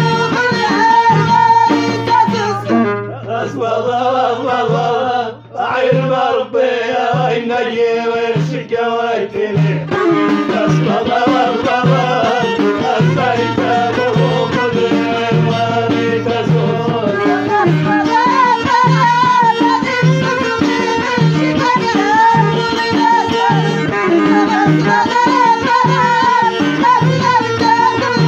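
Moroccan Middle Atlas folk music from Ain Louh, with melodic instruments over a low drone and a steady, even beat. The music dips briefly about five seconds in.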